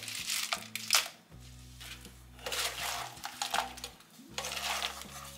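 Crispy fried cauliflower florets tipped from a metal strainer into a non-stick pan, with a sharp clink about a second in. Then they are tossed and stirred with a wooden spatula, a clattering, scraping rustle against the pan in a few separate spells.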